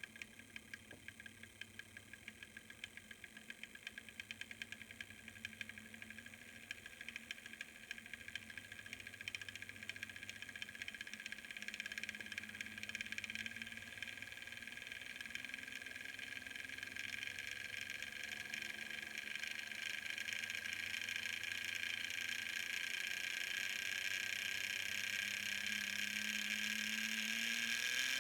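Fleischmann BR 140 model locomotive running, its small motor and gearing giving a high whine with fast clicking, gradually getting louder, and a tone rising in pitch near the end. This is the strange running noise the model makes when driven.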